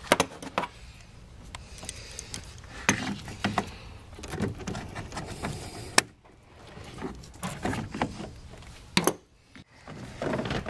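Hands working a plastic coolant expansion tank free: rubbing and scattered sharp plastic clicks and knocks as the level-sensor connector is unclipped and the tank is lifted out, with the loudest clicks about six and nine seconds in.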